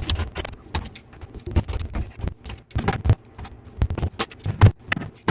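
Irregular knocks, clicks and clanks of hands and tools working on plumbing parts under a kitchen sink, while a worn garbage disposal is being taken off. A low hum stops right at the start.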